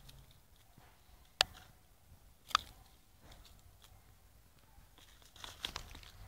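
Neapolitan mastiff puppies biting and chewing an orange: two sharp crunches about a second apart, then a flurry of smaller crunches near the end.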